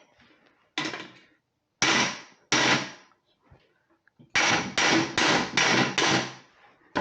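Hammer striking the thin sheet-metal tractor grille against a dolly held behind it, knocking down a high spot. There are about eight sharp, ringing blows: one, then two, then a quick run of five.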